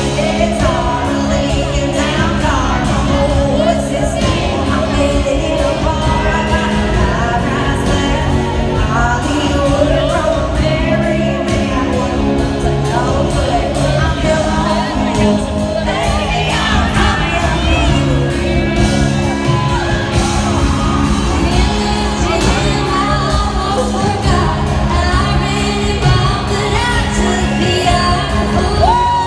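Live country band with three women singing, heard from among the audience.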